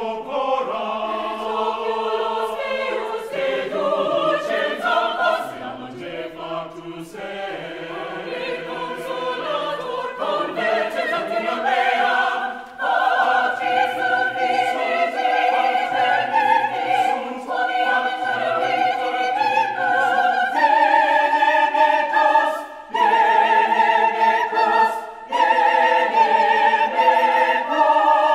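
Mixed chamber choir singing unaccompanied in Latin, sustained chords in several parts. It grows louder about halfway through, with short breaks between phrases later on.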